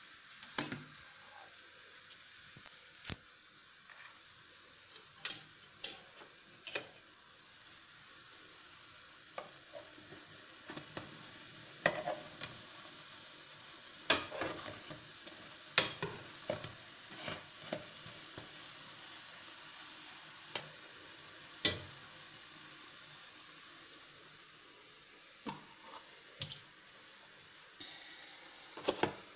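Pancakes sizzling as they fry in oil in a non-stick frying pan, with a steady hiss. Sharp metallic clinks and knocks come again and again as a metal spoon strikes and scrapes the pan while turning them.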